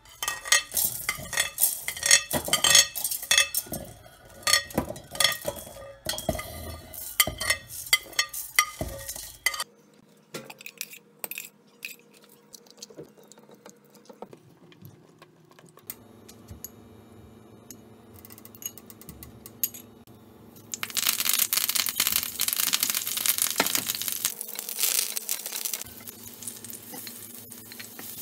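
Whole peppercorns, garlic and other spices clattering into a stainless-steel mixer-grinder jar, a dense run of clicks and clinks for the first ten seconds or so. After a quieter stretch comes a loud sizzle in a steel pan lasting about five seconds, then a wooden spoon knocking and stirring in the pan.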